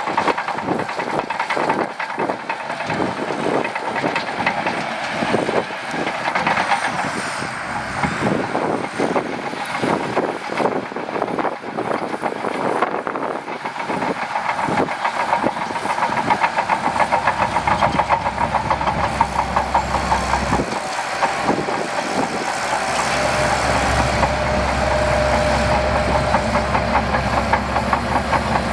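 Shantui DH17C2 crawler bulldozer working: its steel tracks clank and rattle in quick succession over its diesel engine. About two-thirds of the way in, the clatter eases and a heavier, steady low engine rumble takes over.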